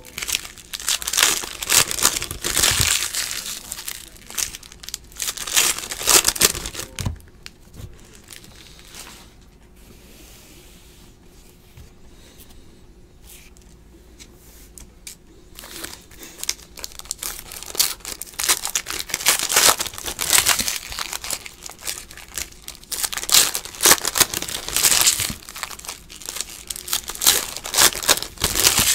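Foil trading-card pack wrappers crinkling and tearing as packs are ripped open by hand. There is a quieter stretch of several seconds in the middle.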